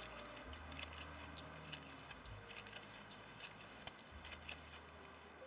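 Faint, scattered soft ticks and rustles of thread and a tatting shuttle being handled as double stitches are tied.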